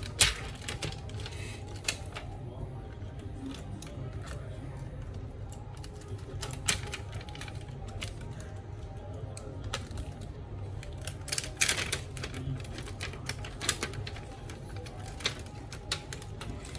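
Plastic laptop case parts being handled and pressed into place: irregular sharp clicks and snaps, a second or a few seconds apart, over a steady low hum.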